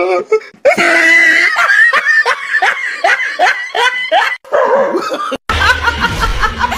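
A person laughing hard in quick repeated bursts. After a sudden cut about two-thirds of the way through, a woman laughs loudly.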